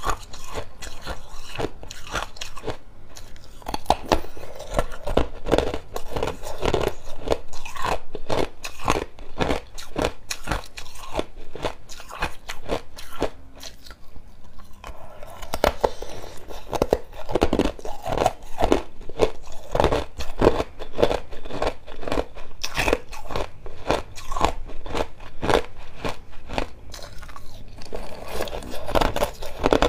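Clear ice chunks being bitten and chewed: a dense, continuous run of loud crunches and cracks, with a short lull about halfway through.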